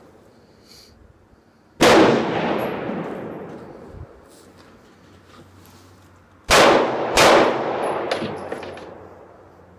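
Three gunshots, one about two seconds in and two close together about five seconds later, each trailing off in a long echo.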